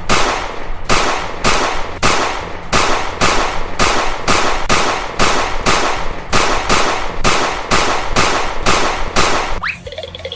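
A long run of sharp bangs at an even pace, about three a second, stopping near the end.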